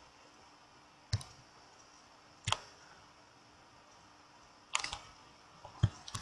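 Computer mouse clicks: a few single sharp clicks spaced one to two seconds apart, with two coming close together near the end, over faint room hiss.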